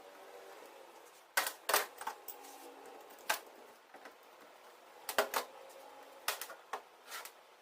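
Sharp metallic clicks and knocks of hand tools and parts being handled while a power steering pump is taken apart, coming in short clusters a second or two apart.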